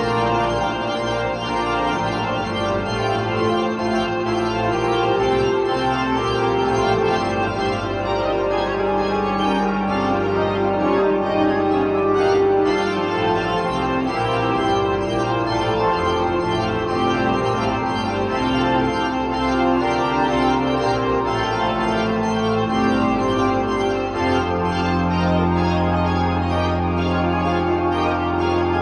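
Three-manual electronic organ playing slow, held chords. A deep bass note comes in near the end.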